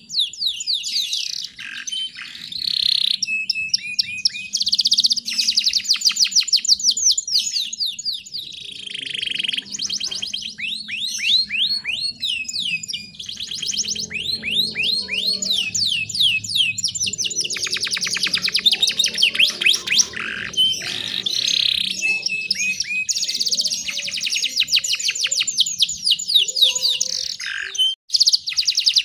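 A canary singing a continuous, high-pitched song of fast rolling trills and rapid repeated chirps, in phrases separated by brief pauses.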